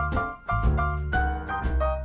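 Background music: a jazzy piano tune with a bouncing beat.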